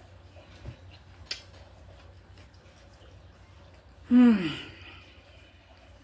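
A woman's short wordless vocal sound, like an "ooh" or a sigh, falling in pitch, about four seconds in. Two faint clicks come earlier.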